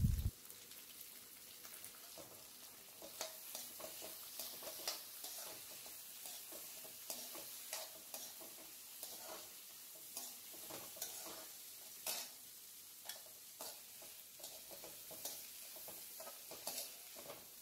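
Steel spatula stirring and scraping shallots, garlic, dried red chillies and adamant creeper stems around a kadai, over a faint steady sizzle of them frying in sesame oil. Irregular scrapes and light knocks of the spatula on the pan, one louder about twelve seconds in.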